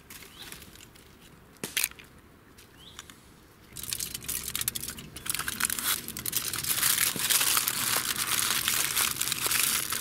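Aluminium foil crinkling and crumpling as it is wrapped by hand around a tomato, starting about four seconds in and going on busily from then on. Before that it is quiet but for a single sharp click.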